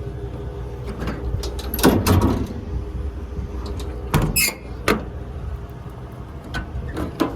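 Metal toolbox compartment doors on a truck's service body being handled: latches clicking and doors clattering open and shut in several separate bursts, over a steady low hum.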